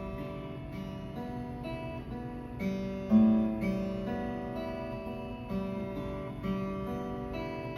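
Acoustic guitar being played, sustained notes changing about twice a second, with one louder plucked note about three seconds in.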